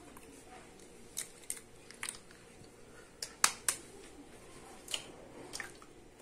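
Eggs being cracked one after another on the rim of a plastic blender jar: a series of short, sharp shell cracks and taps, the loudest pair about three and a half seconds in.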